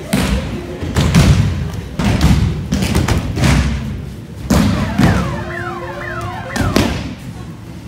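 Judo throws and breakfalls on tatami mats: a series of heavy thuds roughly a second apart as bodies hit the mat during sparring.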